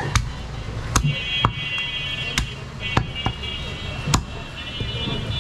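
Butcher's cleaver chopping goat meat and bone on a wooden chopping block. About seven sharp chops come at an uneven pace.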